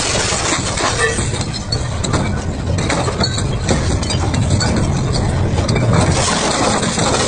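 Double-shaft shredder tearing apart an electrical appliance's plastic and sheet-metal casing, circuit boards and small motor: a heavy, steady machine rumble under constant cracking and crunching of breaking material.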